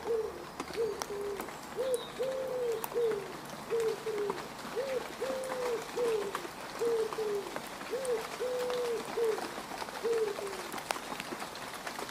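A dove cooing, a phrase of low coos repeated about every three seconds, over the steady hiss of rain falling on mud with scattered drop clicks.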